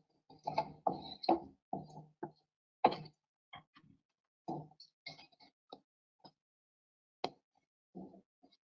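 Hard-rubber epoxy grout float scraping and knocking against glazed wall tile in a series of short, irregular strokes, the loudest near 3 and 7 seconds in.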